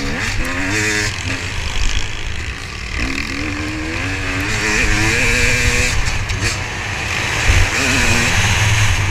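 Motocross bike engine revving hard under race throttle, its pitch climbing through the gears in repeated rises and drops, with wind rushing over the microphone.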